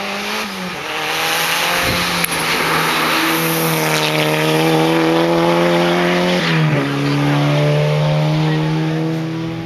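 A rally car's engine running hard as the car approaches and passes close by, holding a steady high note. The note drops suddenly about two-thirds through, as at a gear change, and the sound fades near the end as the car drives away.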